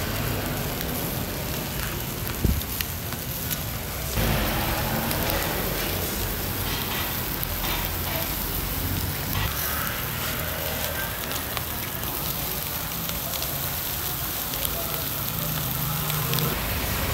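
Skewered pork barbecue and innards sizzling and crackling over a charcoal grill, with a low rumble underneath and a single sharp knock about two and a half seconds in.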